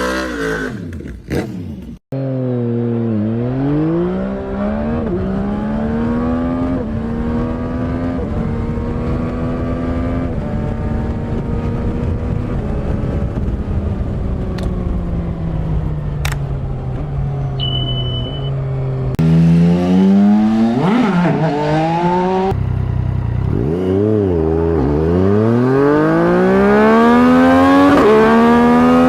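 Yamaha MT-series naked bike's engine and exhaust accelerating hard through the gears: the pitch climbs, drops at each shift and climbs again, with a long stretch where the revs fall away slowly. The sound changes abruptly a few times, as between separate clips.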